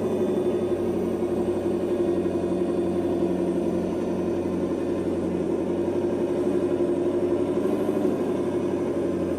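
Electric RC crawler's brushless motor and gear drivetrain whining steadily under throttle, held at an even pitch, dropping away just after the end.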